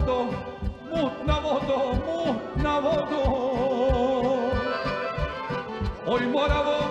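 Male singer performing a Serbian folk song live over a band with a steady beat, holding one long wavering note in the middle.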